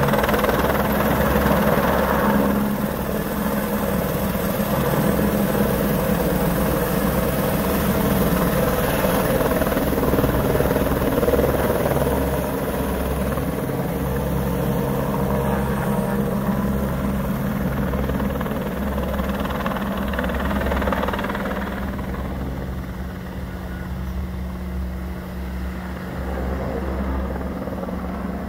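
Airbus AS350 AStar helicopter, its main rotor and turbine running steadily in a hover. The sound grows fainter over the last several seconds as the helicopter flies away.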